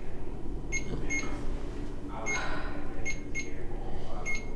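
A handheld ghost-hunting meter going off: about six short, high electronic beeps at irregular intervals.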